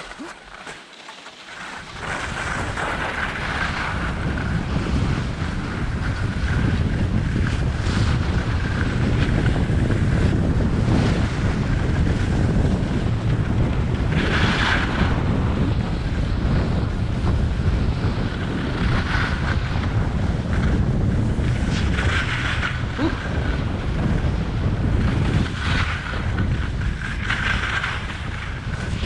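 Wind buffeting the action camera's microphone as the skier picks up speed downhill, a loud steady rumble that jumps up about two seconds in, with the hiss and scrape of skis on snow swelling now and then through the turns.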